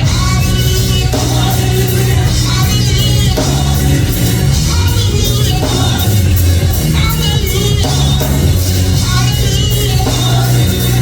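Church gospel music: singing voices over a band with a strong, steady bass line.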